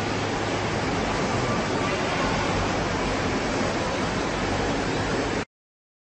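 Steady, even rushing noise with no distinct calls or tones, cutting off abruptly about five and a half seconds in, followed by dead silence.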